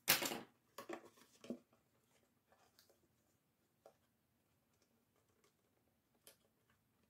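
Cardstock being handled and folded into a box: a sharp paper rustle in the first half-second, a few softer rustles over the next second, then only faint taps and ticks.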